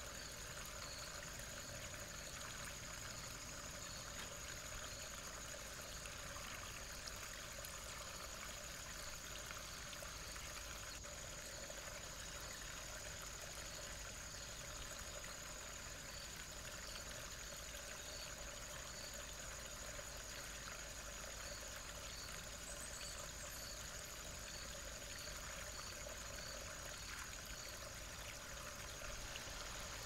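Small woodland stream trickling steadily, with a faint steady high whine and a series of faint, evenly spaced high peeps.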